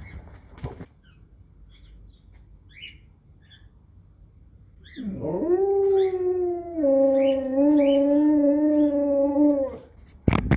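Siberian husky howling: one long howl of about five seconds that rises at the start, then drops to a lower, wavering pitch partway through. A couple of sharp knocks follow near the end.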